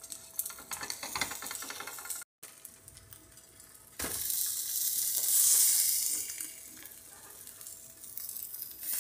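Omelet frying in a nonstick pan, turned with a plastic spatula: quick scraping and tapping of the spatula on the pan, then, after a brief cut, loud sizzling that swells and dies down.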